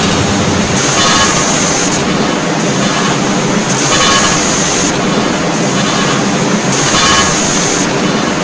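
Harsh experimental electronic noise music: a loud, dense wall of hiss and rumble with no clear tones. A high hissing band cuts in and out in a repeating cycle about every three seconds.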